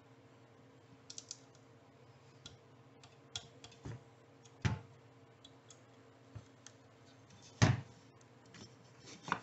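Socket ratchet clicking as bolts are run down into an aluminium motorcycle engine cover, with scattered light clicks and several sharper metal knocks. The loudest knock comes about three-quarters of the way through.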